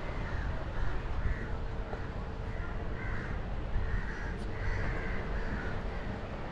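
Crows cawing repeatedly in short calls, over a steady low rumble of wind and water.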